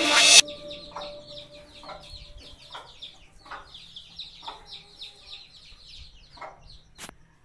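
A mother hen with a brood of chicks: the chicks peep over and over in short, high, falling chirps, and the hen gives low clucks about once a second. A single sharp click comes near the end.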